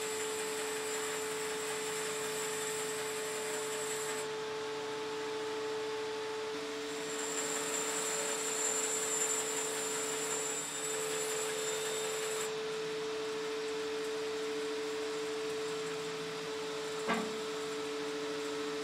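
Bandsaw running with a steady hum while its blade cuts through a thick block of black walnut. The high hiss of the cut drops away and returns a couple of times, and there is a short knock near the end.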